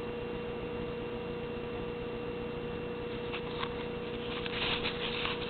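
Fire crackling and popping in a homemade fireplace over a steady hiss and a constant hum. The crackles start about halfway in and come thicker near the end.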